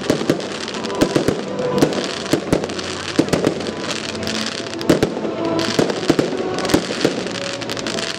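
Fireworks going off: repeated sharp bangs several times a second over continuous crackling.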